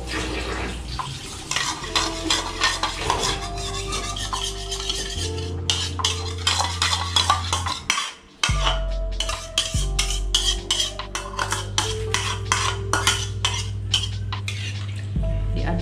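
A spatula scrapes a thick sauce mixture out of a plastic bowl and stirs it into broth in a wok: rapid scrapes and clicks, with a brief break about eight seconds in.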